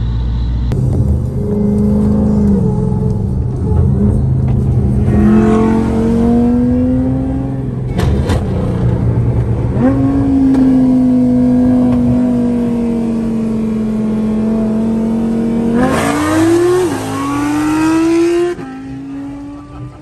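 Supercharged Dodge Hellcat V8 accelerating hard, its note climbing and then dropping back at gear changes about ten and seventeen seconds in, with a sharp crack about eight seconds in; the engine eases off near the end.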